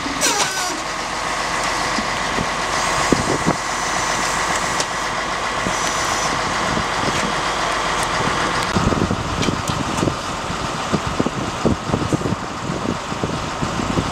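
Fire-brigade crane truck's engine running at idle, with a steady high-pitched hum over it for the first half. From about nine seconds in, scattered short knocks come through over the engine.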